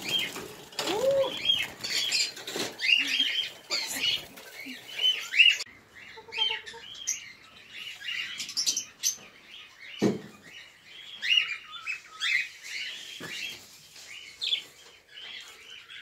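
A flock of caged budgerigars chirping and chattering continuously in quick, overlapping warbled calls, with a single dull knock about ten seconds in.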